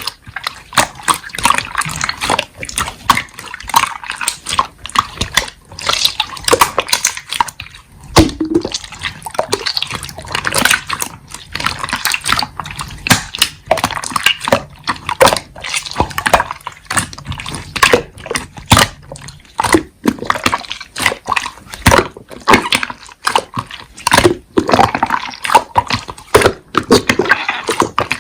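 Slime being squished, pressed and stretched by hand, making a dense, irregular run of wet clicks, pops and squelches.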